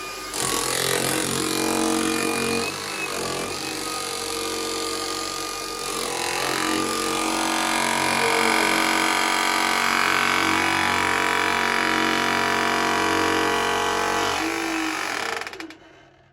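Hilti TE-700 AVR electric breaker hammering into rock, running steadily. It gets louder about six seconds in and cuts off shortly before the end.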